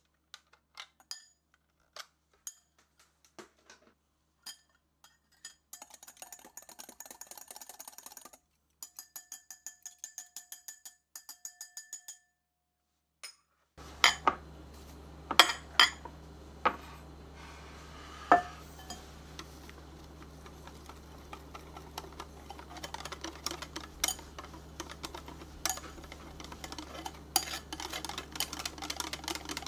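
Metal beaters tapping and clinking against a glass mixing bowl in short ringing strokes. About halfway through, a wire balloon whisk clanks loudly against a glass bowl a few times, then beats egg-yolk batter in fast, continuous rhythmic strokes over a low steady hum.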